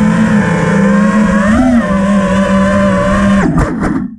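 FPV quadcopter's electric motors and propellers whining steadily, with a brief rise in pitch about halfway. Near the end the pitch drops sharply as the quad comes down in the grass, the spinning propellers chop grass with a couple of sharp hits, and the motors cut off.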